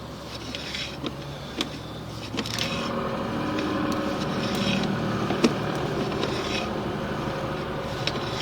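A motor running steadily, with a low hum that grows louder about three seconds in, and a few sharp clicks.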